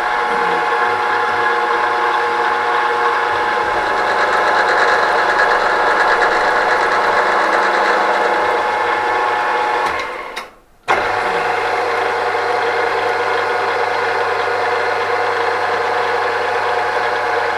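Machine-tool spindle motor running steadily with a whine while drilling into a metal pulley; it is switched off about ten seconds in and started again about a second later.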